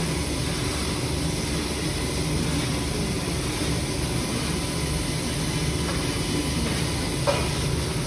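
Steady running noise of workshop machinery, a low rumble with hiss, and one short knock about seven seconds in.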